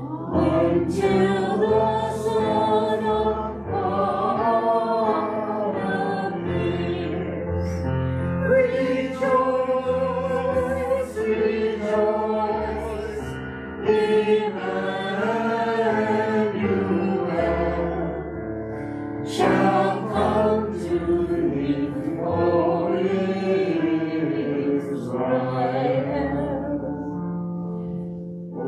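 Church congregation singing a hymn together over held bass notes from an accompaniment. There is a brief break in the singing about halfway through.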